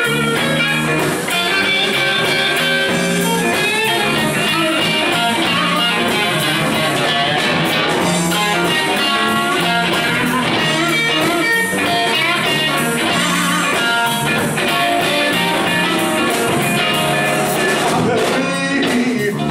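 Live electric blues band playing an instrumental passage: a Telecaster-style electric guitar plays lead lines over electric bass and drums with a steady beat.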